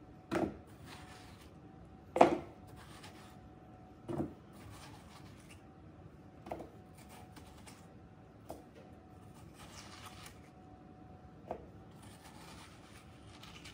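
Watermelon being cut with a knife on a maple wood cutting board: faint cutting and rustling, broken by six sharp knocks about every two seconds, the loudest about two seconds in.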